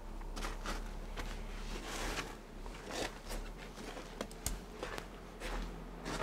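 Footsteps on snow, a series of short, uneven steps.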